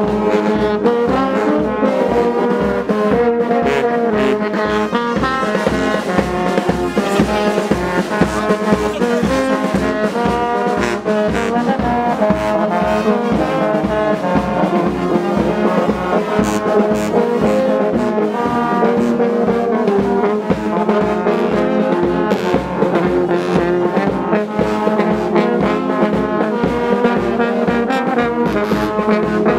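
A brass band of tubas and euphoniums playing a slow tune in several parts, with held low notes over a steady low pulse.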